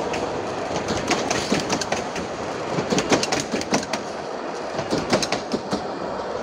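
Narrow-gauge passenger coaches rolling past close by, their wheels clicking irregularly over the rail joints above a steady rolling rattle.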